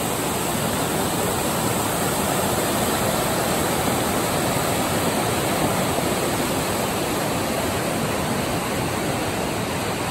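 Fast, silty mountain river rushing over rocks in whitewater rapids: a loud, steady rush of water.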